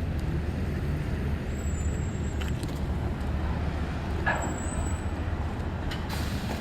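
Steady low engine rumble from a boat's engine as it manoeuvres in reverse, with a brief knock about four seconds in.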